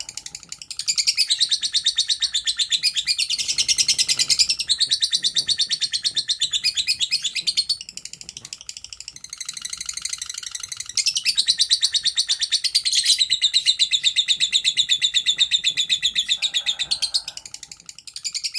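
Lovebird's long 'ngekek' chatter: rapid runs of shrill, evenly repeated notes lasting several seconds at a time, softer for a few seconds in the middle and briefly dropping away near the end.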